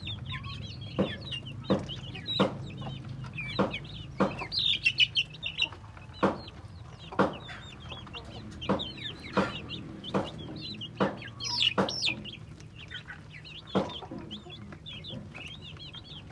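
A brood of Muscovy ducklings peeping constantly in high, quick calls while feeding, with sharp clicks about once a second as their bills knock the feed tray.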